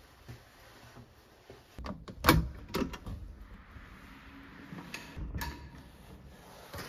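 Door with a push-pull digital door lock: a sharp latch clunk about two seconds in as it is opened. A few softer clicks follow about five seconds in as the door is eased shut quietly.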